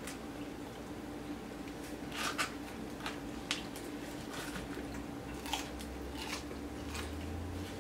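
Close eating sounds of people eating crispy fried chicken and biscuits: scattered bites, crunches and mouth clicks, the loudest cluster about two to three and a half seconds in, over a steady low hum.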